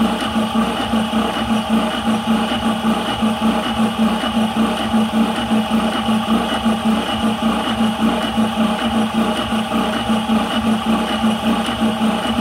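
High-pressure air compressor running steadily under load with an even, pulsing drone as it fills a PCP air rifle's 180cc air cylinder toward 200 bar.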